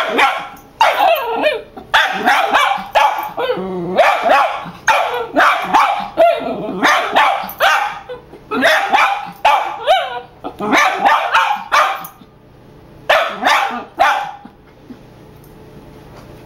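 Small dachshund barking repeatedly in quick runs of sharp barks at what it takes for another dog, a chihuahua statue and its mirror reflection. The barking stops about two seconds before the end.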